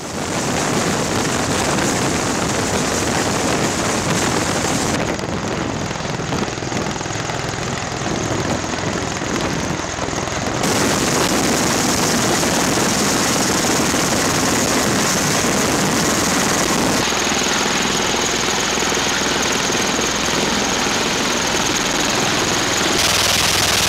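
Bell Boeing V-22 Osprey tiltrotor in helicopter mode, its two Rolls-Royce AE 1107C turboshafts and proprotors running loudly during hover, landing and takeoff. The sound changes abruptly at several cuts.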